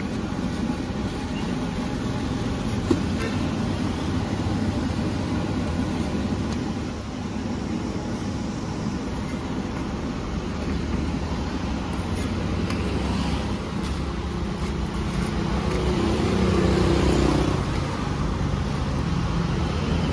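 Steady street traffic noise, with a vehicle passing louder about fifteen to eighteen seconds in and a single sharp click about three seconds in.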